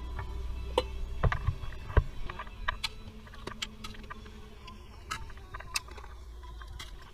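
Metal spoon knocking and scraping against a large aluminium cooking pot as meat is stirred, giving scattered sharp clinks, the loudest about a second and two seconds in.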